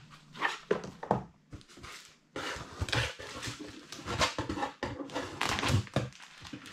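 A few light knocks, then a plastic document sleeve and paper rustling and crinkling as they are peeled off a cardboard parcel.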